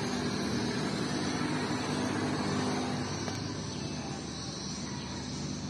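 Diesel engine of a loaded UD Quester tractor-trailer running as the truck pulls slowly away, a steady low engine note that eases off slightly in the second half.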